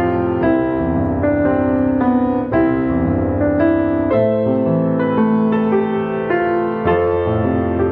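Slow, gentle piano music: sustained chords and single notes, with a new note or chord struck about every half second to a second.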